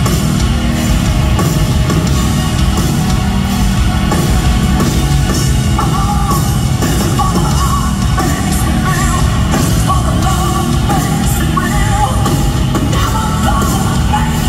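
A rock band playing live at full volume, with electric guitars and a drum kit. A singer's voice comes in over the band about six seconds in.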